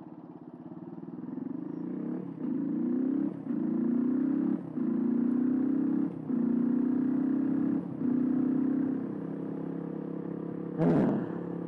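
Suzuki DR125 single-cylinder engine accelerating hard through the gears: the pitch climbs, breaks briefly at each of several quick upshifts, then settles into a steady high-rpm cruise near the end.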